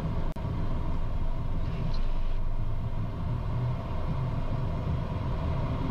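Steady cockpit noise of a Cessna Citation business jet's twin turbofan engines running at low thrust while it lines up on the runway before takeoff power is set: an even low rumble with a faint steady hum above it.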